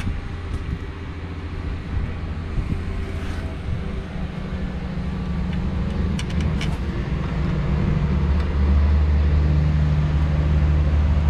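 Low, steady rumble of a motor vehicle's engine, louder from about eight seconds in, with a few light clicks of a hand tool on the bolts.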